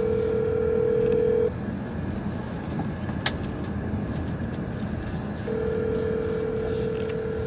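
Phone ringback tone from a mobile phone's speaker: two steady rings of about two seconds each, about four seconds apart, the sign that the called phone is ringing and not yet answered. A low car-cabin hum runs underneath.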